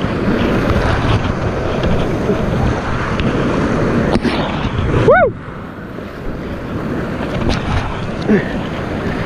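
Whitewater rapids rushing and splashing around an inflatable kayak, with water and wind buffeting the body-mounted camera's microphone. A short whoop rises and falls in pitch about five seconds in.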